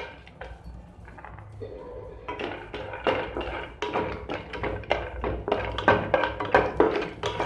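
Spatula stirring cashews in a little hot ghee in a nonstick kadai, making irregular taps and scrapes against the pan that start about two seconds in.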